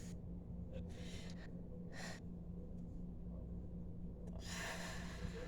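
A woman breathing audibly through a bout of hiccups: a faint breath about a second in, a short sharp breath about two seconds in, and a longer breath near the end, over a steady low hum.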